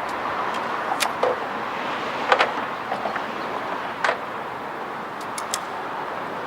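A hand tool tapping and clicking against a steel ladder-rack crossbar, punching marks for drill holes. Several short, light taps come at irregular intervals over steady background noise.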